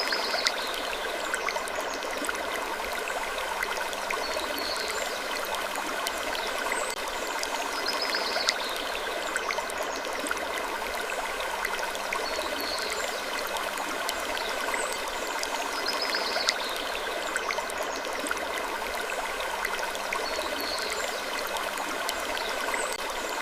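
A steady hiss like running water, with faint short creaks coming back every two seconds or so.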